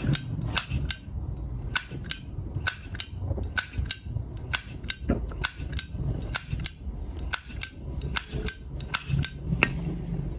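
Lid of a 1974 Zippo lighter flicked open and snapped shut over and over, about two dozen sharp metallic clinks, each with a bright ringing tone. This is the lighter's original, untouched hinge and cam sound.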